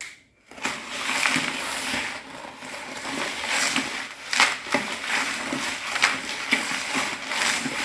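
A wooden stick stirs and scrapes a dry, granular mix of liquid-soap base and powders around a plastic bowl, giving a gritty crunching scrape with each irregular stroke. It starts about half a second in.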